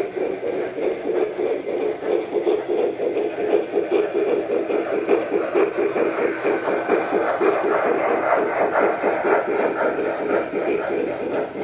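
O-scale model steam locomotives, a Lionel Clinchfield 4-6-6-4 Challenger and an MTH Erie 2-8-8-8-2 Triplex, running past with their trains: a rapid, steady, rhythmic chugging over the rumble of wheels on three-rail track.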